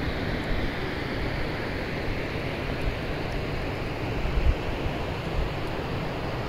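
Wind on the microphone: a steady rushing noise with irregular low rumbling buffets, the strongest about four and a half seconds in.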